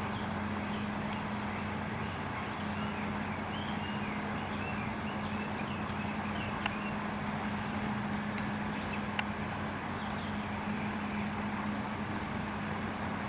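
Steady outdoor background noise with a constant low hum, a few faint high chirps in the first half, and two sharp clicks in the second half.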